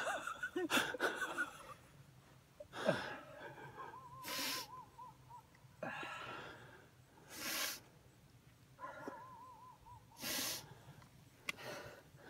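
A man crying with emotion, downright squalling: sharp sniffing and gasping breaths every couple of seconds, and two high, quavering wails, one about four seconds in and another near nine seconds.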